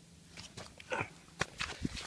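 Footsteps on soft mud and dry leaves as a man gets up from a crouch and moves: a few irregular scuffs and crunches, the sharpest late on.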